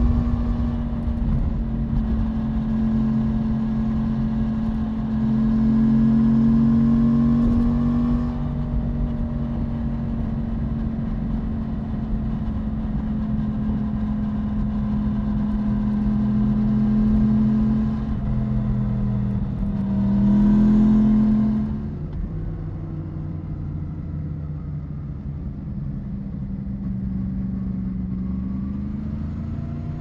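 Yamaha MT-10's crossplane inline-four running through an SC-Project SC1 exhaust while riding, its note holding steady. About two-thirds in it swells briefly with a short burst of throttle, then settles to a lower pitch, and climbs again near the end.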